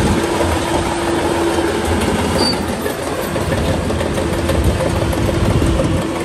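Shantui DH17C3 bulldozer running under load with its diesel engine and tracks rattling, a steady whine over the top that drops out for a moment midway.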